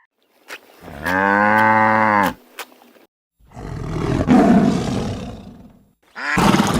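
Two loud animal calls: a long call with a clear, steady pitch lasting about a second and a half, then a rough, noisy roar that swells and fades over about two and a half seconds. Another pitched call begins just before the end.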